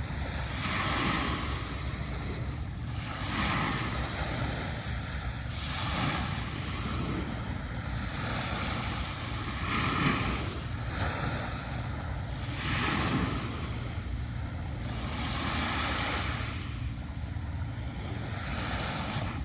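Small waves breaking and washing up a sandy beach, a new wash every two to three seconds, over a steady low rumble of wind on the microphone.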